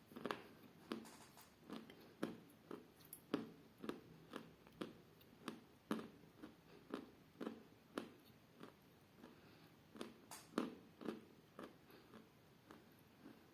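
Chewing chalk close to the mouth: a faint, even series of short crunches, about two a second.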